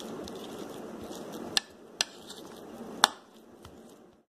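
Steel spoon mashing boiled potatoes in a bowl, with three sharp clinks of the spoon against the bowl about one and a half, two and three seconds in; the last one rings briefly.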